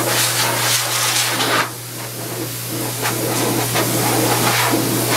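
Hose-type dog grooming dryer blowing on its low setting: a steady rush of air over a constant motor hum. The rush swells and dips as the nozzle moves, dropping a little about a second and a half in.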